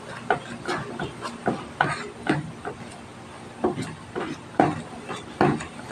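Metal spoon scraping and clinking against a perforated stainless steel colander while mashing potatoes, in irregular strokes about twice a second with a short pause midway.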